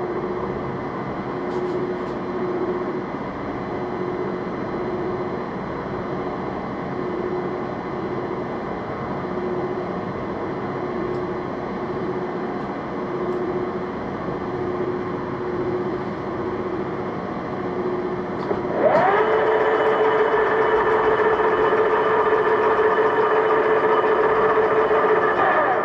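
A metalworking machine tool running under power, a steady mechanical hum with a tone that pulses about once a second. About 19 seconds in it gets louder and settles into a steadier, higher tone, then drops back near the end.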